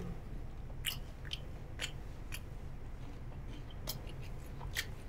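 A person chewing a mouthful of bread close to the microphone: irregular short mouth clicks and smacks, about half a dozen, over a low steady hum.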